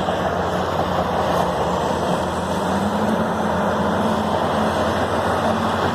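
Diesel engines of large wheeled earthmoving machines running steadily, heard over a steady wash of site noise, with one engine's pitch rising slightly about two seconds in.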